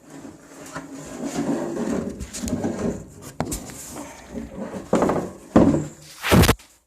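Handling noise: irregular rubbing and scraping with knocks, a sharp knock about three and a half seconds in, and louder scrapes near the end, the last the loudest.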